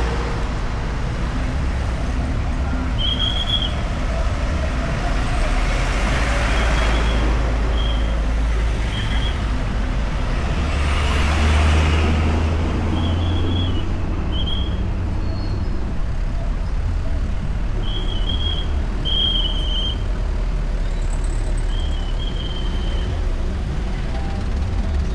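Road traffic: a steady low rumble of car and motorbike engines and tyres, swelling as vehicles pass close about six and eleven seconds in. Short high-pitched chirps come every second or few throughout.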